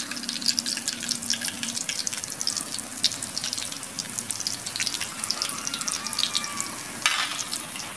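Banana flower fritters sizzling and crackling in hot cooking oil in a wok as they fry to golden brown, with a brief louder hiss about seven seconds in.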